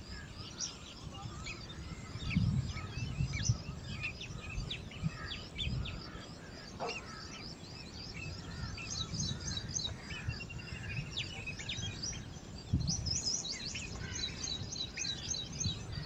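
Wild birds chirping throughout, many short high calls coming in quick runs now and then, over a low rumble that swells a few times.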